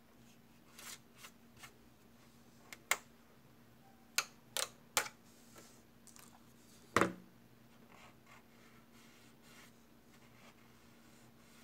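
Scattered sharp clicks and taps of a plastic scale-model airframe and hobby tools being handled on a tabletop, about eight in the first seven seconds, ending with a heavier knock about seven seconds in. A steady low hum runs beneath.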